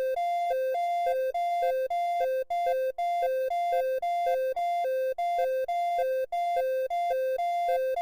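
Synthesized two-tone emergency alert alarm, switching evenly between a higher and a lower pitch about twice a second in a steady hi-lo pattern.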